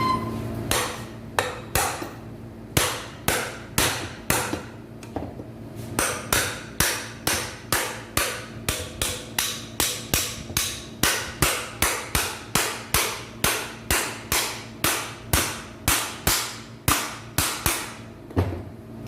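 Steady hammer blows, about two a second, tapping new bearings of a window AC fan motor into their seats as the motor is put back together.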